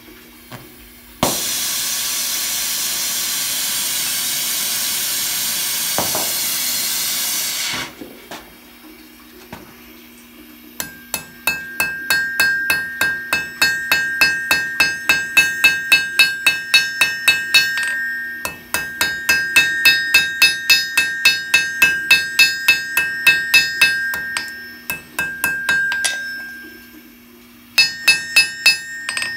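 Gas torch on a treadle gas-saver valve hissing steadily for about six seconds, then cut off suddenly. Then rapid hammer blows on hot steel over the anvil, about three a second with the anvil ringing, in two long runs and a short burst near the end, as the end of the iron hook is spread and pointed.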